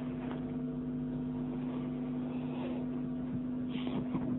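Steady electrical hum, its pitch held steady, with several fainter overtones above it.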